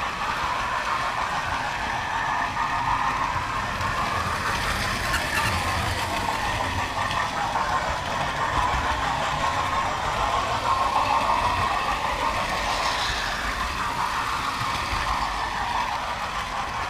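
Model railway train running on its track, heard close up from a camera riding on one of its wagons: a steady rolling rumble of wheels on rails with a whine that rises and falls in pitch.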